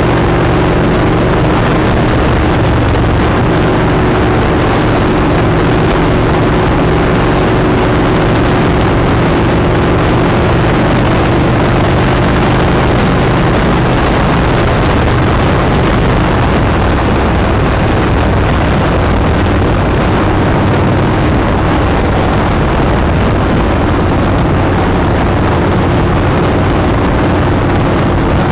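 Motorcycle running steadily at highway cruising speed, with heavy wind rushing over the bike-mounted microphone.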